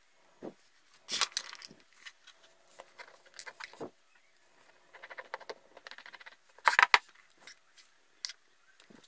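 Small metal parts handled by hand: metal tweezers and a tiny brass bearing clicking, tapping and scraping against each other, with brief finger rustles. The sounds come in irregular clusters, the loudest clicks about seven seconds in.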